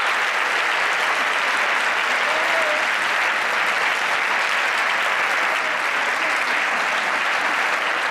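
Large audience applauding steadily at the end of a dance performance.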